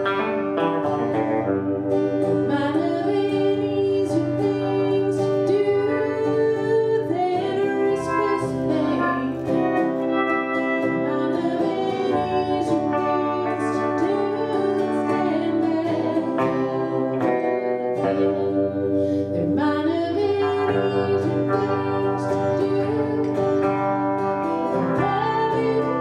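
Live song: a woman sings over a strummed acoustic guitar and an electric guitar.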